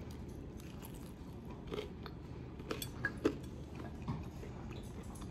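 A person chewing a mouthful of buffalo cauliflower flatbread on naan, with a few faint crunching clicks about a second apart.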